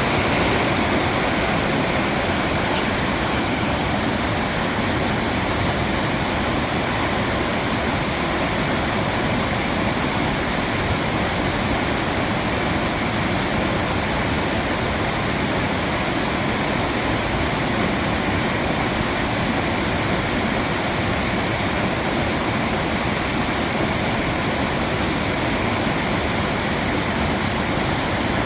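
Mountain stream rushing over rocks, a steady, dense sound of flowing water with no breaks.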